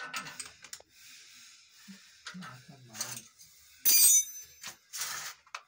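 Handling noise of hands and tools working on battery cables, with one sharp metal clink that rings briefly about four seconds in.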